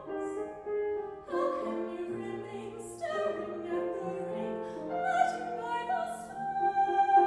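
A high female voice singing a slow musical-theatre song in an operatic style, holding long wavering notes, over instrumental accompaniment.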